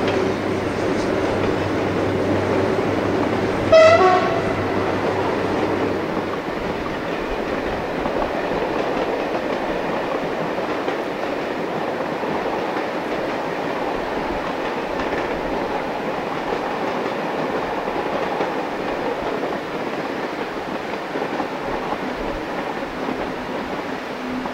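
Passing passenger train with a diesel locomotive: an engine drone for the first few seconds, one short horn blast about 4 s in, then the steady rumble of the coaches rolling over the track.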